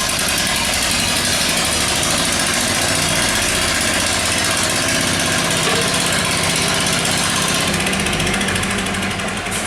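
A small engine on construction machinery running steadily at a constant speed, with a dense mechanical rattle.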